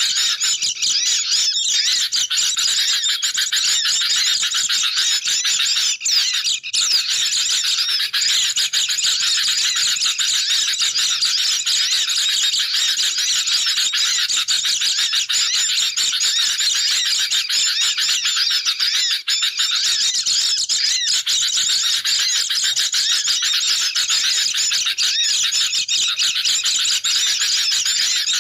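Dense, unbroken chattering of many birds, sooty-headed bulbuls and white-eyes calling over one another in agitated, high-pitched calls: a bird-luring (pikat) recording of a noisy flock.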